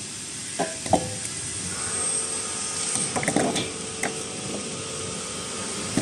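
Carrot brush washing and peeling machine running with a steady hiss and hum, while washed carrots slide off its stainless steel outlet chute and knock into a steel bowl a few times.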